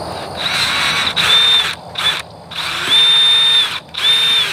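DeWalt cordless drill boring a 9/64-inch bit into a steel pipe post in short trigger pulls: about five bursts of motor whine, each spinning up and dropping off, the longest about a second near the middle.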